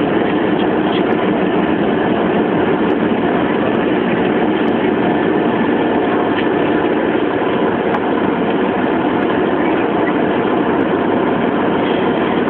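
Hovercraft engines and fans running with a loud, steady drone, heard from inside the passenger cabin as the craft moves slowly.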